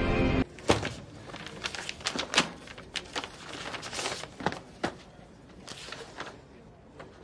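Score music cuts off about half a second in. Then comes a run of papers and a folder being handled: rustling with light taps and knocks, thinning out near the end.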